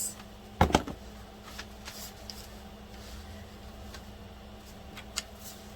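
Cardboard packaging of a hair clipper set being handled: two sharp clicks a little under a second in, then a few faint taps and rustles over a low steady hum.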